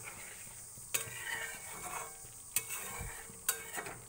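A spatula stirring pointed gourds in a poppy-seed and mustard paste in a metal kadai, with a few sharp clinks against the pan over a light sizzle.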